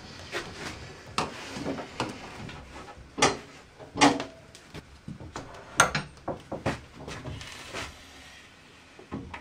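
A SawStop cabinet table saw being rolled across the floor on its mobile base: a low rumble of casters broken by several sharp clunks and knocks.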